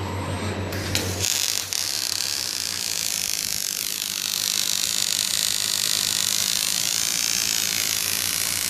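Robotic arc welding: a low electrical hum gives way about a second in to the welding arc's steady hiss, which stops abruptly near the end as the arc is cut.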